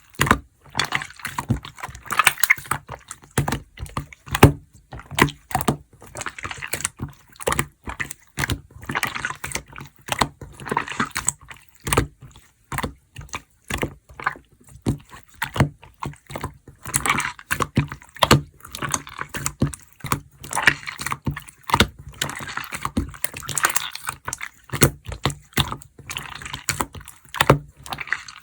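Mixed slime being squished, pressed and stretched by hand, making rapid irregular wet clicks, pops and squelches in short bursts.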